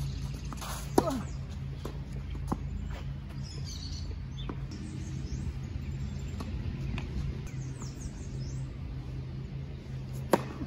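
Tennis balls struck by rackets on a clay court: sharp pops about a second in and again near the end, the loudest, with a few fainter hits between. Birds chirp high over a steady low hum.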